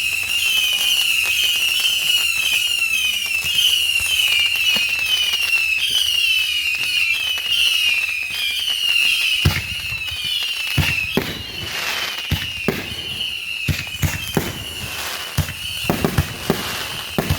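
Backyard whistling fireworks (whistlers) shrieking many at once in a continuous, shrill, wavering whistle. From about halfway in, sharp firework bangs break in among the whistles.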